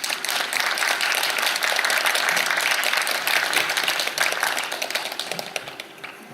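Audience applauding a dance group's introduction, the clapping dying away over the last second or so.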